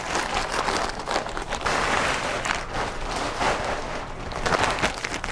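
Stiff plastic chemical splash suit rustling and crinkling as it is pulled up over the legs to the waist.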